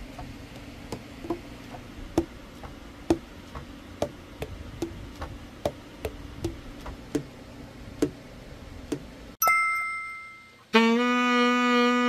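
Keys of an overhauled Selmer Mark VI copy tenor saxophone pressed shut one after another in a leak test, the pads closing on the tone holes with clicks about twice a second, seating tightly. Near the end a short chime, then the tenor saxophone playing a held note.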